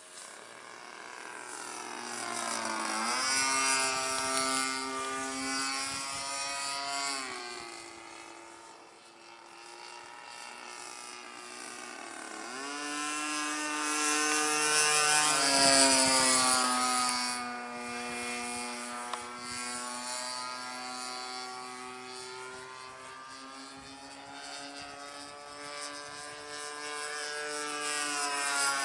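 Evolution 20cc GX2 two-stroke gas engine of a Hangar 9 Ultra Stick RC plane in flight, turning a 15x6 prop. Its buzzing note swoops down and up in pitch several times as the plane passes and changes throttle. It grows loud about four seconds in and again near the middle, then fades back.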